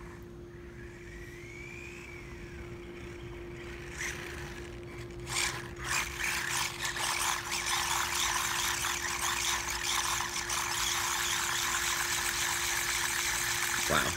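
1/18-scale HBX Ratchet electric RC sandrail buggy driving hard on asphalt: motor whine and tyre scrub, rising to a loud, surging hiss about five seconds in as it spins donuts.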